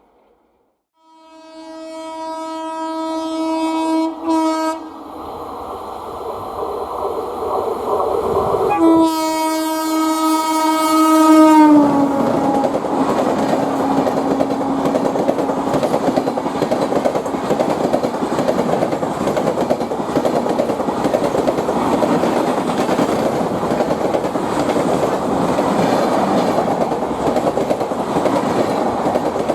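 An Indian Railways express train's horn sounds two long blasts, the second dropping slightly in pitch at its end. The train then runs past with a steady rumble and the clickety-clack of wheels on rail joints.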